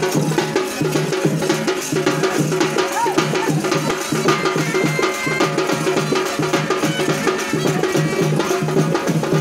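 Fast, continuous drumming with a steady, driving beat.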